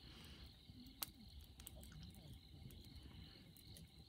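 Near silence at night: a faint, steady high chirring of insects, with a few soft crackles from a small wood fire, the sharpest about a second in.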